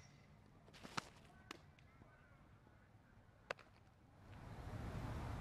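A softball pitch smacks into a leather catcher's mitt with a sharp pop about a second in, then a second sharp pop about three and a half seconds in as the returned ball lands in the pitcher's glove. Near the end a steady background rush swells up.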